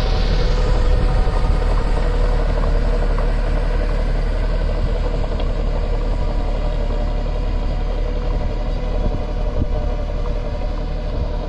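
Farm tractor engine running steadily while working a muddy field.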